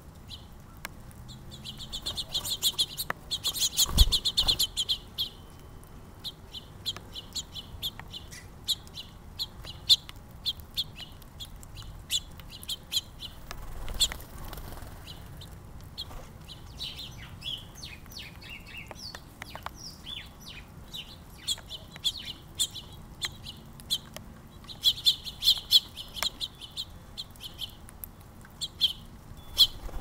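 Small songbirds chirping at a seed feeder, with short high chirps throughout and bursts of fast chattering about two to five seconds in and again around twenty-five seconds. A single sharp knock sounds about four seconds in.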